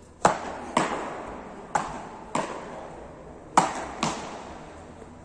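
Beach tennis paddles striking the ball six times in a fast rally, starting with an overhead serve. Each hit is a sharp pop with a short echo in the indoor hall.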